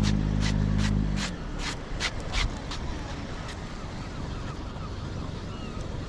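Spinning reel being cranked fast, ticking about three times a second, the ticks fading out after a couple of seconds. A steady low hum runs under it and cuts off about a second in, and faint high chirps follow.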